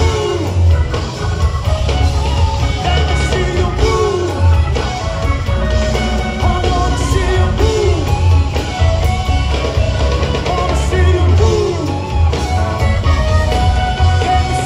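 Live Latin rock band playing loudly, heard from the audience in a concert hall: a singer over electric guitar, bass guitar, drum kit and congas, with a heavy bass.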